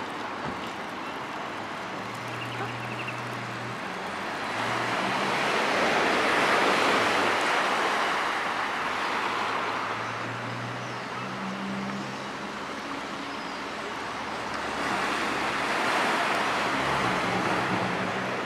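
Sea waves washing in on the shore, swelling twice, over a low steady hum of road traffic.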